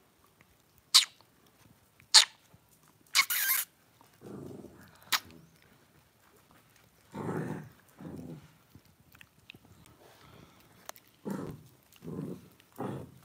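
Lhasa Apso puppies play-fighting: a couple of sharp, short yaps in the first few seconds, then a string of short, low growls at irregular intervals.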